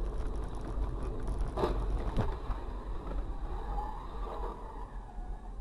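Low steady rumble of a moving vehicle, with two short knocks about one and a half and two seconds in.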